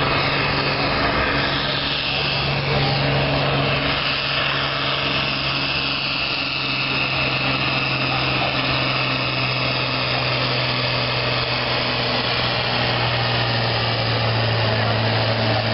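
John Deere tractor's diesel engine running under full load while pulling a sled, with a steady low drone whose pitch sags slowly toward the end.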